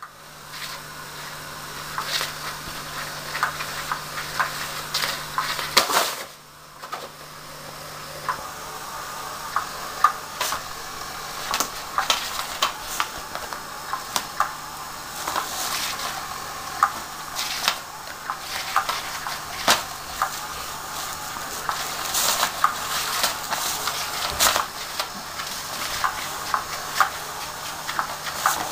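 Cat's Meow battery-powered revolving cat toy running: a low motor hum under a steady rustling scrape as its hidden wand sweeps beneath the nylon cover, with frequent sharp clicks and taps. The sound drops briefly about six seconds in, then builds again.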